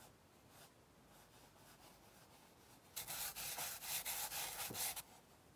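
Charcoal stick scraped rapidly back and forth across paper in quick shading strokes. The scratching starts about three seconds in and stops about two seconds later.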